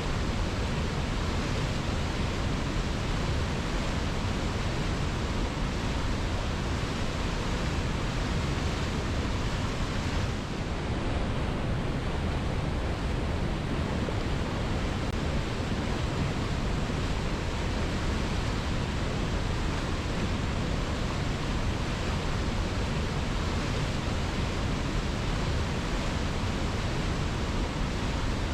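Waterfall rushing in a steady, even roar of falling water, with a brief dip in the higher hiss about ten seconds in.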